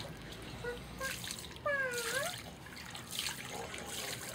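Water trickling and splashing, with one short high-pitched voice about a second and a half in.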